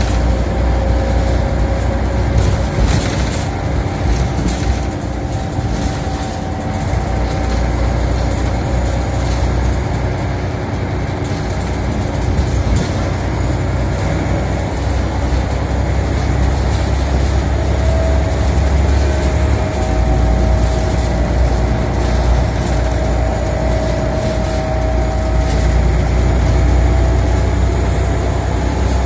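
Scania OmniCity single-deck bus under way, heard from inside the saloon: steady engine and road rumble with a few rattles in the first seconds, and a whine that climbs slowly in pitch over the last ten seconds as the bus gathers speed.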